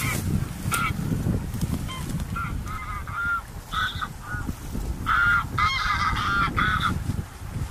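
A flock of wild geese honking: many short calls overlapping, coming in clusters, with wind rumbling on the microphone.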